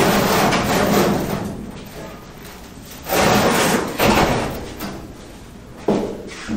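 Sheet-steel roof skin of a 1969 Chevy Nova being pried up and lifted off the car after being cut free: scraping and banging of the thin panel in several bursts of about a second, with a sharp knock near the end.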